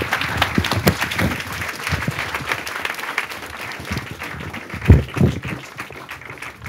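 Audience applauding, dense at first and thinning out over the last few seconds. A couple of low thumps about five seconds in.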